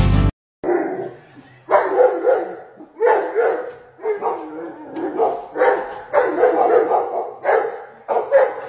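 A dog barking repeatedly at animals on a television screen, about one bark a second, each with a short fading tail.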